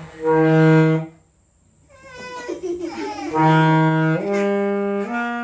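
Saxophone playing: one long low note, a short pause, then held notes stepping upward in pitch. A baby's voice is heard briefly between the notes.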